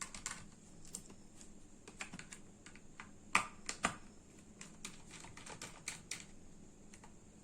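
Small screws being taken out of a laptop drive's metal caddy with a screwdriver: scattered light clicks and ticks of the driver and caddy, with two louder taps a little past the middle.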